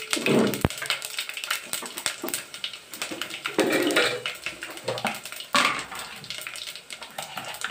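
Whole fenugreek, cumin and coriander seeds sizzling and crackling in hot mustard oil in a steel pot, with clatter of a spice box and small bowls being handled. A sharp knock comes about half a second in.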